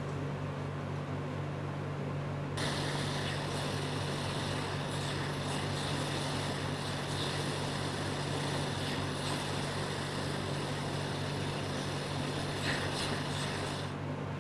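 Steady low machine hum under a hiss; about two and a half seconds in, a brighter airy hiss comes on and runs until just before the end.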